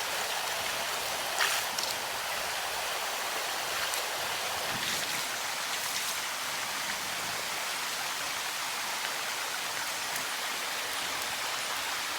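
Running water: a steady rushing hiss with a few faint clicks.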